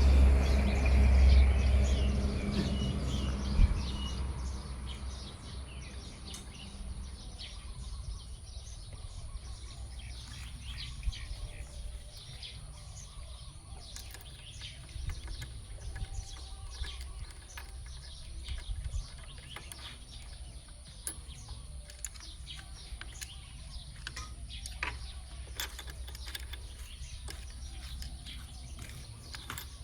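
Birds chirping over a faint steady background, with scattered light clicks and taps; a low rumble fades away over the first few seconds.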